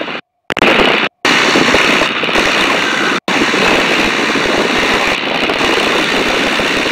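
de Havilland Tiger Moth's Gipsy Major four-cylinder inverted in-line engine running steadily in flight, heard from the open cockpit together with the rush of the slipstream. The sound drops out completely three times, briefly, in the first three seconds or so.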